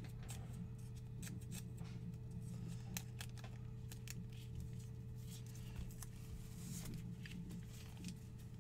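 Scattered light clicks and scrapes of trading cards and plastic card holders being handled and set in stands, over a steady low hum.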